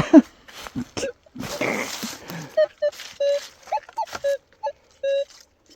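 Scraping and knocking for the first couple of seconds, then a metal detector beeping on a target: a string of short beeps, a few of them wavering in pitch.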